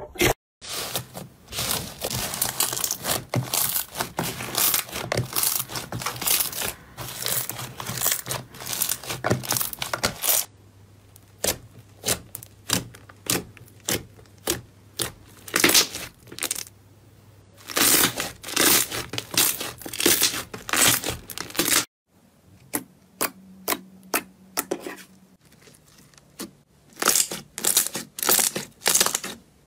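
Hands squeezing, pressing and poking slime: a dense run of sticky squelches with sharp crackles and pops of trapped air. The texture changes abruptly twice as different slimes are worked, about ten and twenty-two seconds in.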